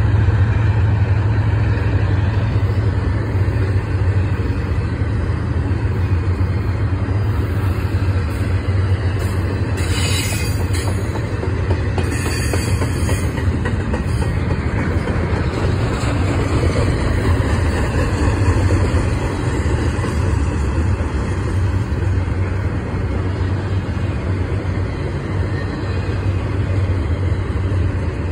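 Double-stack intermodal container train rolling past close by: a steady low rumble of well cars on the rails, with short bursts of higher hiss about ten and thirteen seconds in.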